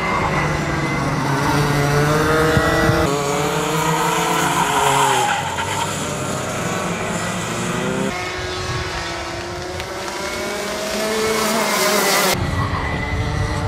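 Racing kart two-stroke engines at high revs as karts lap the track, the pitch rising and falling with the throttle through the corners. The sound jumps abruptly a few times from one kart to another.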